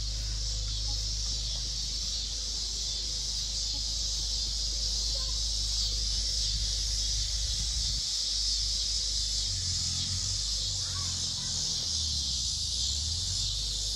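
Steady, high-pitched chirring of an evening insect chorus, with a low rumble underneath.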